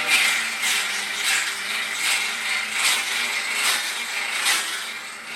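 Rhythmic rasping strokes of a hand tool working wood, a little more than one stroke a second, each a short hiss.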